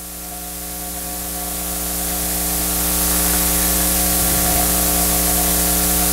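Steady hiss over a low electrical hum from the recording and sound system in a pause between words. It grows louder over the first three seconds, then holds steady.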